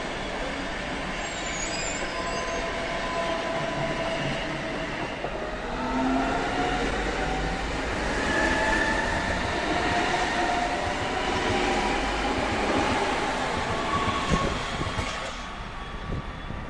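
Hamburg S-Bahn electric multiple unit pulling away, its traction motors whining in several tones that shift in pitch over the running noise of the wheels on the rails. The sound drops off about fifteen seconds in as the train moves away.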